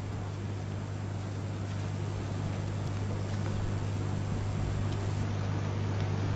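Steady electrical mains hum from the courtroom's microphone and sound system, with a hiss behind it, slowly growing louder.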